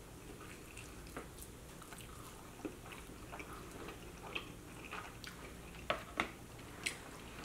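Faint close-miked eating sounds: chewing chicken wings, with scattered small wet mouth clicks and a few sharper smacks about two-thirds of the way through.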